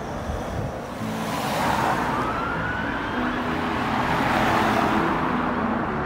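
Road traffic: cars passing close on the road, their tyre and engine noise swelling up twice and fading, with background music underneath.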